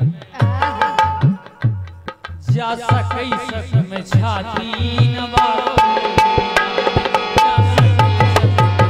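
Harmonium playing a folk-song melody in steady held notes over hand-drum accompaniment whose bass strokes bend in pitch. Near the end the drumming quickens into a fast run of bass strokes.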